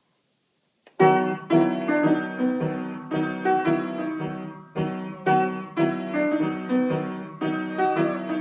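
Upright piano played in a run of separate chords and notes, starting about a second in. Near the end a German Shepherd puppy starts to howl along in a gliding, wavering pitch over the piano.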